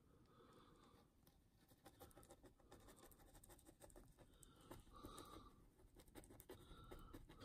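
Near silence: faint clicks and scratches of a paintbrush dabbing thick mud-texture paste onto a diorama base, with faint breathing.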